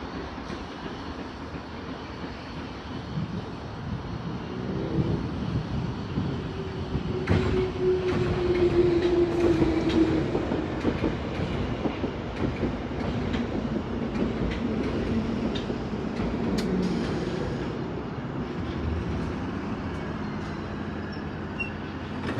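Bakerloo line 1972 Stock tube train pulling into the platform and braking to a stop. Its running noise builds over the first few seconds and is loudest about a third of the way in, with a whine that falls in pitch as it slows, then settles lower as the train comes to rest.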